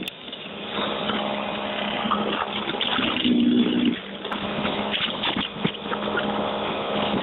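EGO 21-inch battery-powered single-stage snowblower running as it clears fluffy snow: a steady electric motor hum over a continuous rush of snow. A short pitched note comes in a little past three seconds in.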